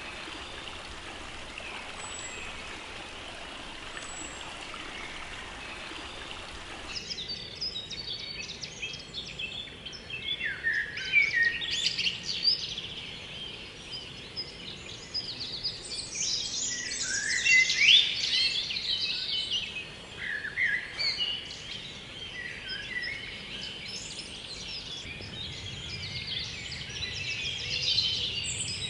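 A small woodland stream and low waterfall rushing steadily, cutting off abruptly about seven seconds in. Many songbirds then sing over one another in a dense chorus of chirps and quick warbled phrases.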